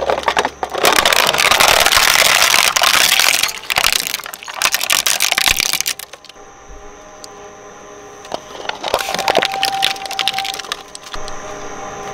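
Twin-shaft shredder's counter-rotating cutters crunching and cracking a hard plastic box, loud and dense for about six seconds. It then runs on much more quietly, with a short burst of cracks partway through and a few scattered clicks from leftover fragments.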